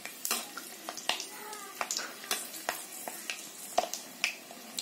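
Dried red chillies and garlic cloves frying in hot mustard oil in a steel wok: irregular sharp crackles and pops of spattering oil over a soft sizzle, with a metal spatula stirring.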